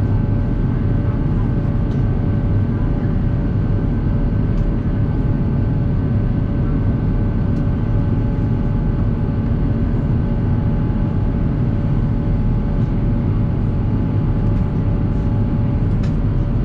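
Steady in-flight cabin roar of an Airbus A350-900, from a window seat over the wing: engine and airflow noise from its Rolls-Royce Trent XWB turbofans, heaviest in the low end, with a few faint steady hum tones running through it.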